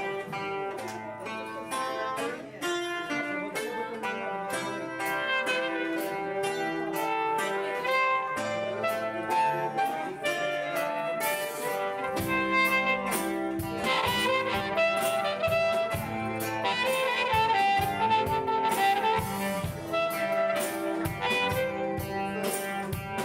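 Live band playing an instrumental passage: a held, sustained melody line over guitar chords and drums, with a deeper bass coming in about halfway through.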